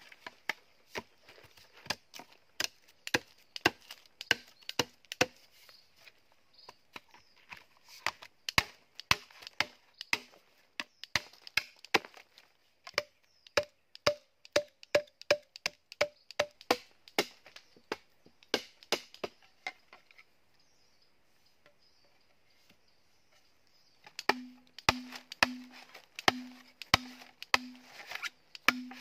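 Machete chopping into green bamboo: a run of sharp knocks about two a second, stopping for about four seconds near the end, then starting again. The later strikes ring with a short hollow tone.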